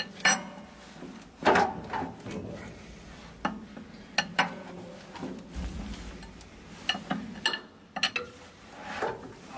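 Metal tools and parts clinking and knocking against each other as they are handled, a dozen or so separate sharp strikes with short quiet gaps between them.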